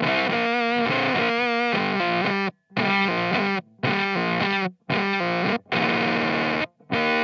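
Electric guitar (Sire S7 Strat-style) through a Teisco Fuzz pedal, playing a fuzzy distorted riff in G. Sustained notes and chords with a wavering bend or vibrato about a second in, then short phrases that cut off abruptly into brief silences.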